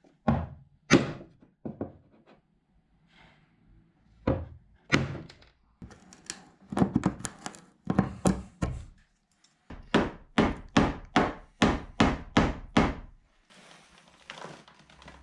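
Ball-pein hammer blows on copper rivets in a wooden clinker plank, knocking them out to free a split section of plank. A few separate blows at first, then a quick run of about three blows a second near the end, followed by faint rubbing.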